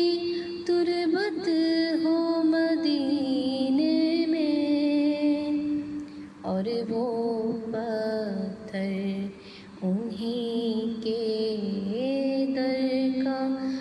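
A woman singing an Urdu naat in long held notes that slide from pitch to pitch.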